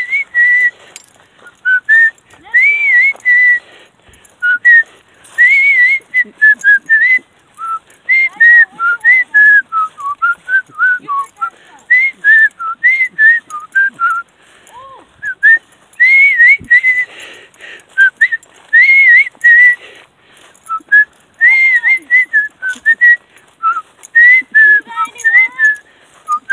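A person whistling a tune close to the microphone: a string of short sliding notes with brief gaps, the same rising-and-falling phrase coming back every few seconds, along with scattered light footsteps.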